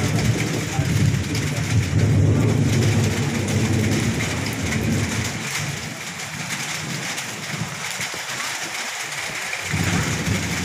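Steady heavy rain with thunder rumbling low under it; the rumble fades a little past halfway and a fresh roll comes in near the end.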